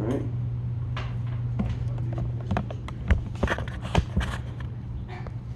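A run of irregular clicks and knocks, bunched up in the middle, over a steady low hum.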